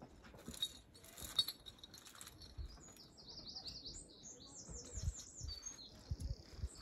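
A songbird singing a run of quick, repeated high sweeping notes starting about three seconds in, over low wind buffeting on the microphone.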